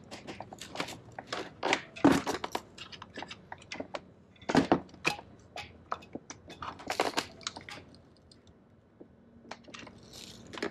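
Irregular clicks, knocks and rattles of plastic and metal parts being handled as the TCU section of a ZF 8HP70 transmission's mechatronics unit is worked loose, with a short lull about eight seconds in.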